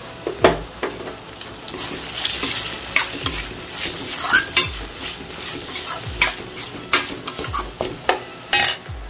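Steel ladle stirring and scraping against a steel pan with repeated clinks and knocks, over the sizzle of sliced capsicum and onion frying in oil as garam masala is stirred in.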